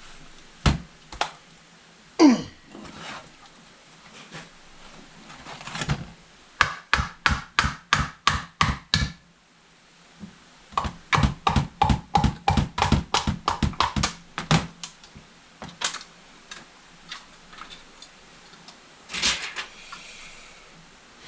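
Hand tools working on a disassembled motorcycle engine: scattered single knocks, then two runs of quick, even metallic strokes, about five a second, each lasting a few seconds. A brief falling squeal comes about two seconds in.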